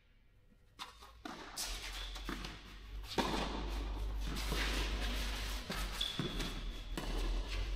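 Tennis ball bouncing and footsteps on an indoor clay court, echoing in a large hall. The clicks sit over a rushing background noise that grows louder about three seconds in.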